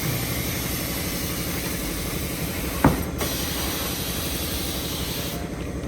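Tire-shop machinery running steadily, with a hiss of compressed air that breaks off briefly about halfway and stops near the end. One short knock just before the middle.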